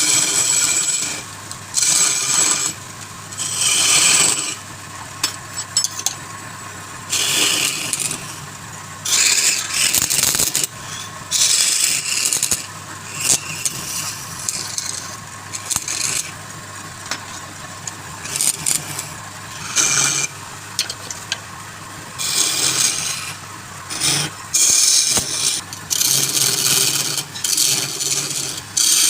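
Wood lathe running with a tool cutting the spinning wood in repeated scraping bursts of about a second each. Between the bursts the lathe's steady hum carries on.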